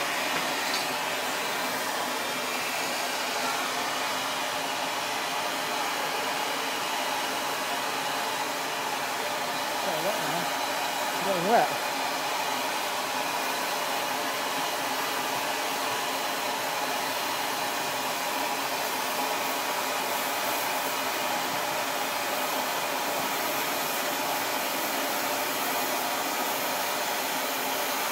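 Steady, loud hiss of steam from a miniature ride-on steam locomotive. About ten to twelve seconds in, a short wavering sound rises and falls over the hiss and ends in a brief sharp peak.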